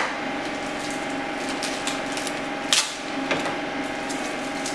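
Steady mechanical hum of a fan or blower running, with a few brief clicks and plastic rustles as small parts and bags are handled, the sharpest a little under three seconds in.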